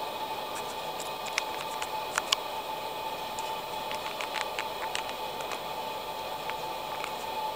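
Steady static hiss with a faint steady tone, broken by scattered clicks and crackles, typical of the noisy sound track of an old, degraded video recording.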